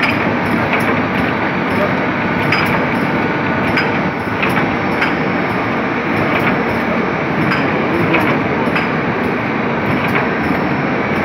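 Machinery of a 500 g block-yeast production and packaging line running steadily, with irregular clicks and clacks about once or twice a second from its moving parts.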